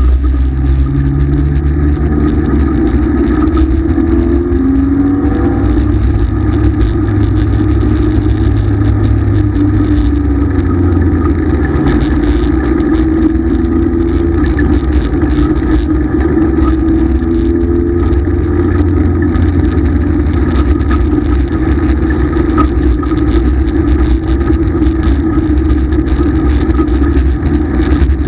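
Race car engine heard from inside the cockpit, running loud and steady, its pitch rising and falling a little with the throttle as the car laps the dirt oval.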